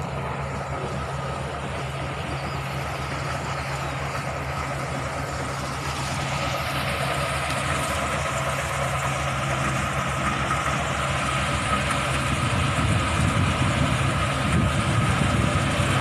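Engine of a mechanized rice harvesting machine running steadily with a steady whine, growing louder from about six seconds in.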